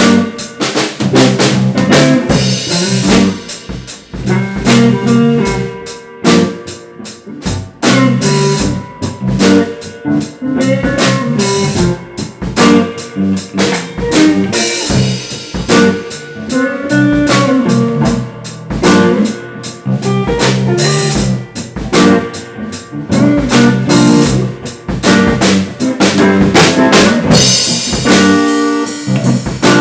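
Garage band jamming: a drum kit with kick and snare keeping a steady beat under electric guitar and bass.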